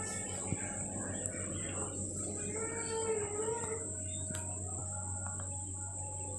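Quiet background: a steady high-pitched insect-like trill over a low hum, with faint wavering pitched sounds drifting through it.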